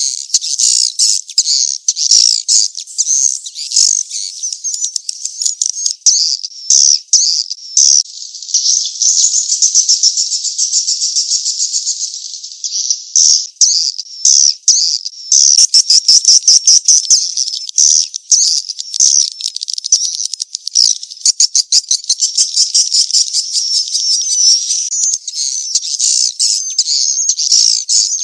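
Edible-nest swiftlet calls: loud, continuous high twittering and rapid clicking trills, with runs of very fast clicks around the middle. This is a swiftlet-farming lure call of the mating-chase type, played to attract swiftlets into a swiftlet house.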